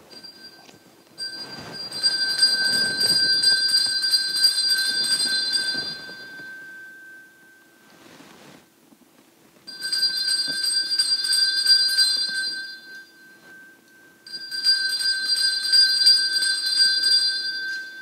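Altar bell shaken in three separate spells of bright, sustained ringing, each a few seconds long, sounding the three signs of the cross of Benediction as the priest blesses with the monstrance.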